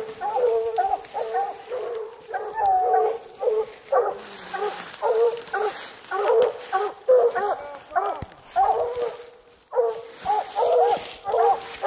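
Coonhounds barking treed: a rapid, near-continuous run of short barks, several a second, with a short lull about two-thirds of the way through, the bark hounds give when they have a raccoon up a tree.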